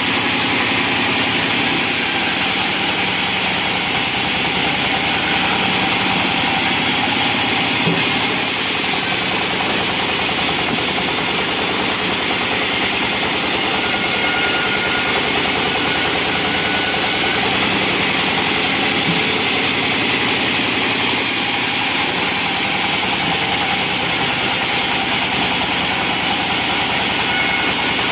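Bandsaw sawmill machinery running steadily, a constant loud mechanical drone with a hissing top that does not change.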